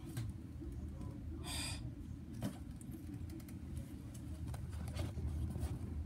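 Several ceiling fans running together: a steady low hum and air rush with scattered light ticks and clicks, and one brief higher-pitched sound about a second and a half in.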